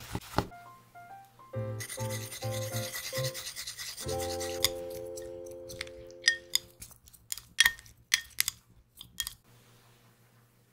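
A few knife strokes through cherry tomatoes onto a wooden cutting board right at the start, then light keyboard music with a held chord. Near the end comes a run of sharp clinks and scrapes of a utensil stirring tomato halves in a glass container.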